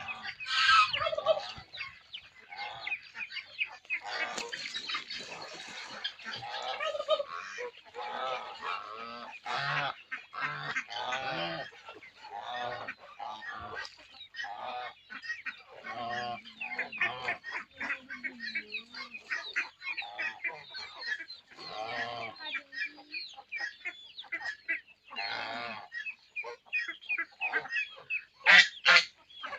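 A large flock of poultry calling, many short overlapping calls with no break, a few louder squawks standing out near the start and near the end.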